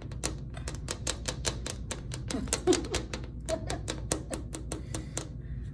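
Rapid, irregular sharp clicking, about five or six clicks a second over a low rumble, stopping shortly before the end.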